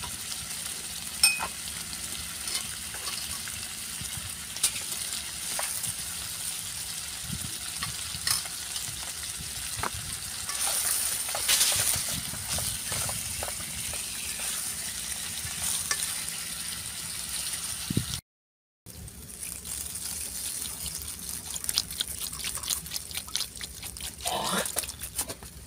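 Fish pieces frying in a stainless-steel pot with a steady sizzle, chopsticks and a spoon clinking against the pot as they are stirred. Near the end, water is poured from a plastic bottle into the pot.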